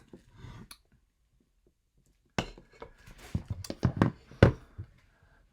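A string of light clicks and taps from small objects being handled, starting a little after two seconds and ending near the end.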